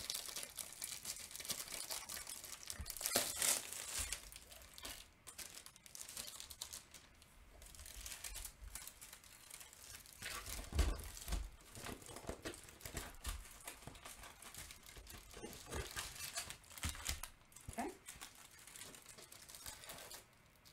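Clear plastic sleeve around a rolled diamond painting canvas crinkling in irregular bursts as it is handled and unrolled, with a dull thump about eleven seconds in.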